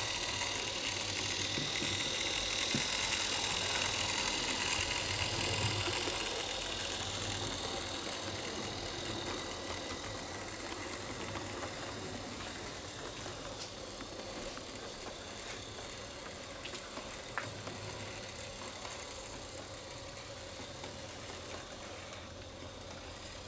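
HO-scale Fleischmann class 78 model steam tank engine running along the track with its coaches, a steady mechanical whirr and rail hiss that slowly fades as the train moves away.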